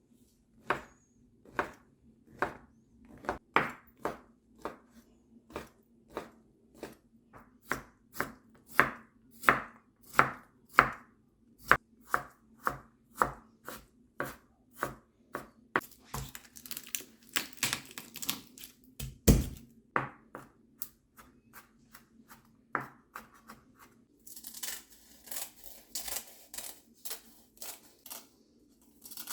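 Knife chopping on a cutting board, steady strokes about two a second, with one heavier thud partway through and scraping of the board in between, while the dumpling filling ingredients are prepared.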